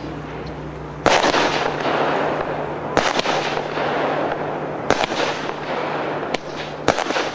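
Royal Fireworks 'China By Night' fireworks cake firing shots about every two seconds, five sharp bangs in all, the last two close together. Each bang is followed by a second or more of crackle as the stars break.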